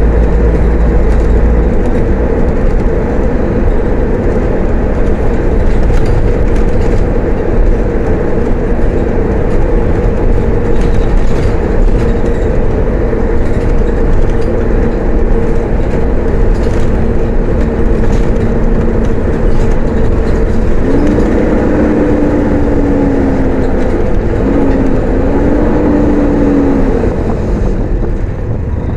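Mercedes-Benz O500-UA bus drivetrain with a ZF automatic gearbox, running on the move. In the latter half a pitched whine rises and falls twice as the bus pulls and shifts.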